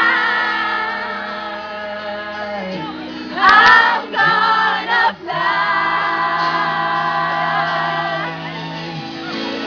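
Live band music with sung, long-held notes over sustained chords, from a pop concert sound check recorded in the venue. About three and a half seconds in there is a brief, louder burst.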